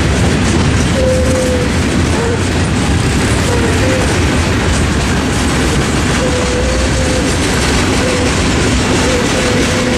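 Freight train cars (gondolas and a boxcar) rolling past over a road crossing: a steady, loud rumble and clatter of steel wheels on the rails. Brief squeals come from the wheels now and then.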